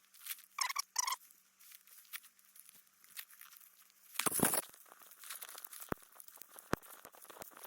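Small twig fire crackling in a wood-burning camp stove: irregular fine crackles and sharp snaps, with one louder crunch about four seconds in.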